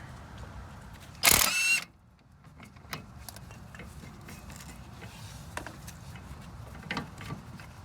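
A short, loud burst of wrench noise about a second in as the 18 mm caliper bracket bolts are taken off, followed by a few scattered light metallic clicks.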